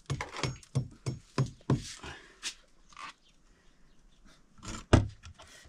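Rapid, even knocking, about three strokes a second, stopping about two seconds in, then one louder knock near the end.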